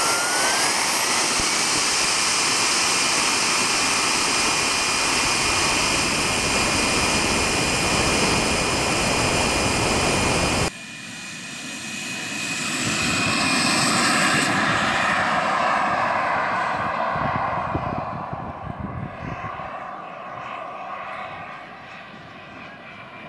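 Radio-controlled model jet's K-80 gas turbine heard close up: a loud whine that rises in pitch over the first two seconds, then holds steady and cuts off abruptly about ten seconds in. After that the turbine is heard from the field, swelling to a peak around fourteen seconds as the jet takes off, then fading as it climbs away.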